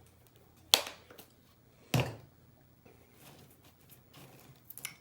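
Two sharp crunches about a second apart from biting into crispy fried chicken strips close to the microphone, then quieter chewing.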